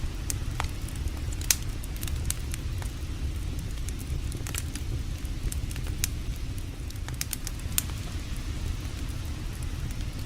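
Campfire of burning wood crackling, with scattered sharp pops and snaps, the loudest about one and a half seconds in. Underneath runs a steady low rumble.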